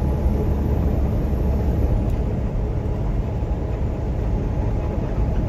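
Steady low rumble of a truck's engine and road noise heard from inside the cab, the engine pulling a hill in top gear at about 1400 RPM before the transmission downshifts.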